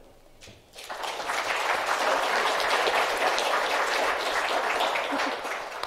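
Audience applauding, starting about a second in and holding steady before dying down near the end.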